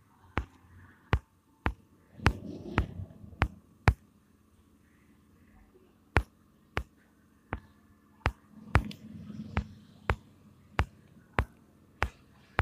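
Sharp, isolated tapping clicks, about one and a half a second, with a pause of about two seconds partway through: fingertip taps on a phone touchscreen as frames are copied and pasted.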